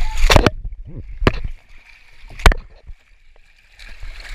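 Water rushing and splashing down a plastic water slide during a ride, with a few sharp knocks as the camera's housing bumps against the slide. The water noise drops away for a couple of seconds in the middle, then comes back near the end.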